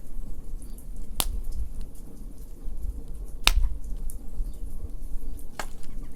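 Wood fire crackling: three sharp pops about two seconds apart, the middle one loudest, with faint ticks over a low rumble.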